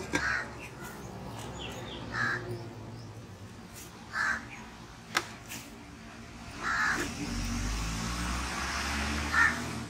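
A bird's short calls repeating about every two seconds, five in all. From about seven seconds in there is a rustling noise as dough is pressed out on a plastic sheet.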